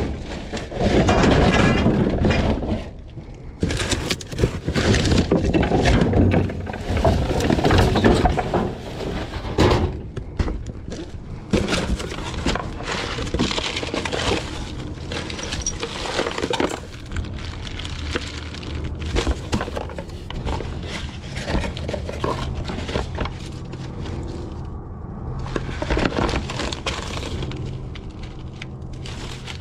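Discarded junk being handled and rummaged through in a dumpster: many irregular knocks, clunks and rustles, loudest in the first ten seconds.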